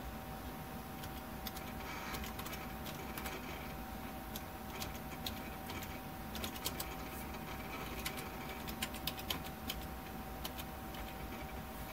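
A 15,000 RPM SCSI hard drive seeking in irregular rapid clicks and ticks as the SGI Indy boots from it, over a steady whine and machine hum. The clicking is busiest in the second half.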